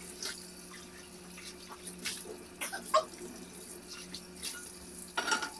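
Dishwasher running a wash cycle: water spraying and sloshing inside the machine over a steady hum, with a few light clicks and knocks scattered through.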